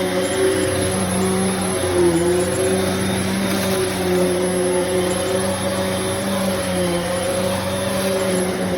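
Hoover MaxLife Elite upright vacuum cleaner running: a steady motor hum with an airy rush, its pitch wavering slightly.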